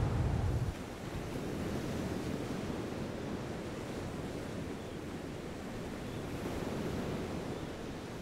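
A loud low rumble dies away within the first second, leaving a steady, soft rushing ambience.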